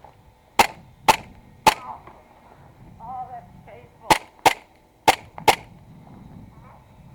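Airsoft guns firing single shots: seven sharp pops, three in quick succession near the start, then two quick pairs a few seconds later.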